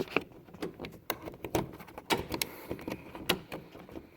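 Irregular sharp clicks and taps from hands working a small clip into the socket of a car's interior rear door handle, inside the opened door.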